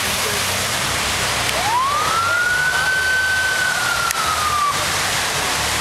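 A single siren wail sweeps up, holds, then slides slightly down and cuts off, over the steady rush of heavy rain and water on a flooded road.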